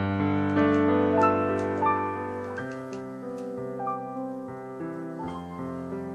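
Background piano music, slow held notes, slowly getting quieter.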